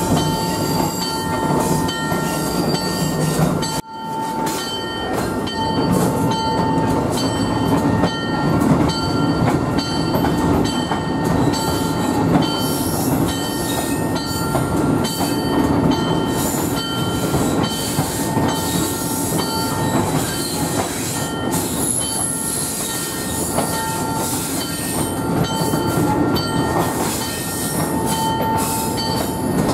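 Train cars rolling along the track: a steady rumble with frequent clicks from the wheels over the rails, and high steady wheel-squeal tones coming and going. The sound dips sharply for a moment about four seconds in.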